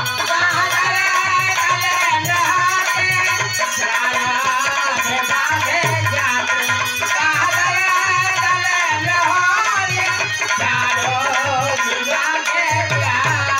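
Harmonium and dholak playing an instrumental passage of folk devotional music: the harmonium carries a wavering melody while the hand drum beats a steady rhythm of deep strokes underneath.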